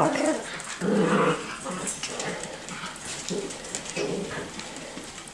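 Miniature schnauzer puppies, five to six weeks old, vocalizing as they play: short whimpers and yips, the loudest about a second in.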